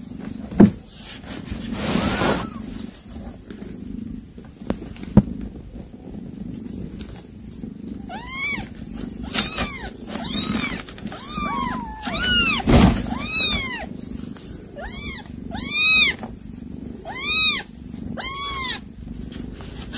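Young kittens mewing: a run of about ten short, high-pitched mews, each rising then falling in pitch, starting about eight seconds in, over a low steady purr. A brief rustle and a couple of small knocks come earlier.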